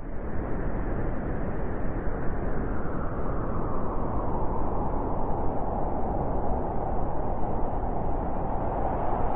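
Cold winter wind blowing steadily, a continuous rushing noise that rises and falls slightly in gusts.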